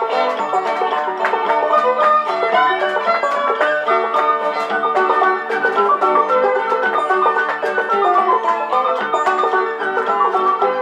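Old-time string band music playing a fiddle tune, with a banjo prominent.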